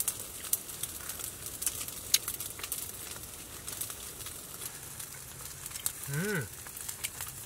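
Metal chopsticks and spoons clinking lightly against stainless steel bowls while eating, in scattered sharp ticks over a low steady hiss. About six seconds in comes a short hummed 'mm' that rises and falls in pitch.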